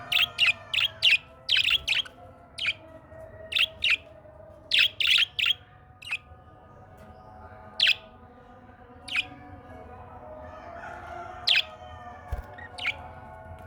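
A parrot giving short, sharp chirps: a quick run of about ten in the first two seconds, then single calls and small groups a second or more apart, over a fainter background of softer, drawn-out bird calls.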